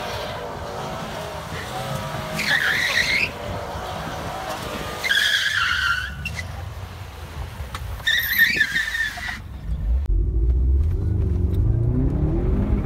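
Subaru WRX's turbocharged flat-four engine running hard as the car slides on grass and dirt, with three short bursts of tyre skidding about 2.5, 5 and 8 seconds in. About two-thirds through, the sound switches to inside the cabin: a low engine drone rising in pitch as the car accelerates.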